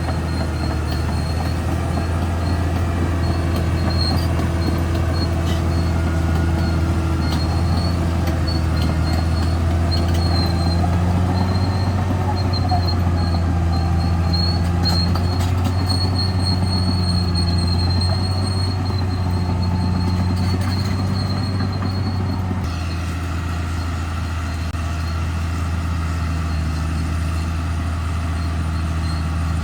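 Caterpillar D6R XL crawler bulldozer working: a steady low diesel drone with a thin, high squeal from its steel tracks running over it. The sound shifts abruptly about three-quarters of the way through, then carries on much the same.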